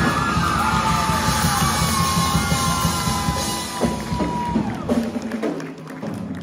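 Amateur rock band playing live on electric guitar, bass and drums, with long held, bending notes and shouted vocals over the full band. About four seconds in the playing drops away into a few separate closing hits as the song ends.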